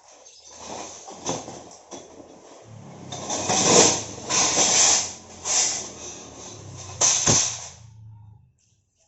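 Parts of a galvanised steel shelving rack being handled and fitted together: a series of knocks and scraping rubs, heaviest in the middle, with a low hum underneath. It all stops suddenly near the end.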